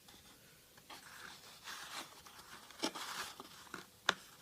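Trading cards being handled and shuffled: soft rustling and sliding of card stock, with a few sharp clicks, the loudest near the end.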